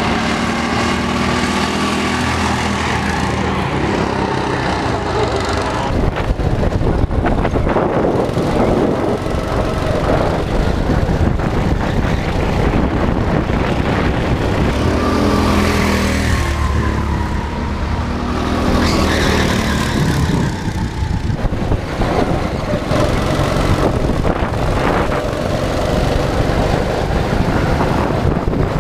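Go-kart engines running on track, their pitch rising and falling again and again as the karts speed up and slow through the corners.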